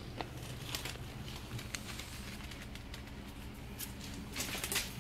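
Soft scattered clicks and rustles from a cat playing close by on a tiled floor, with a quick run of them near the end, over a steady low hum.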